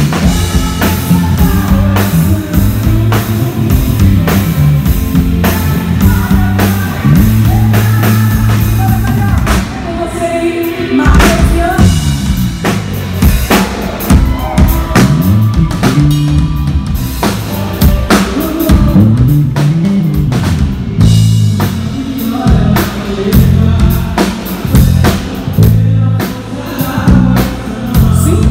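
Live band playing through the stage sound system: drum kit with kick and snare hits, electric guitar and a low bass line, with a woman singing into a handheld microphone.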